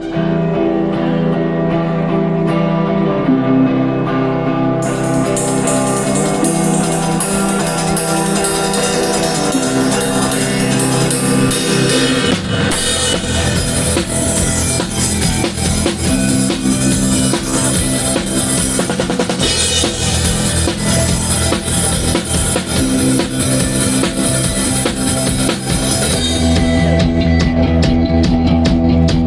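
Live band playing with drum kit: sustained chords at first, cymbals coming in about five seconds in, then the full kit with bass drum joining around twelve seconds, the cymbals dropping away near the end.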